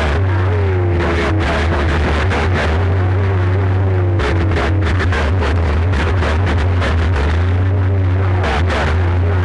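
CB radio receiver sounding an open transmission with no speech: a loud low hum that drops back and returns several times, with wavering whistling tones over it.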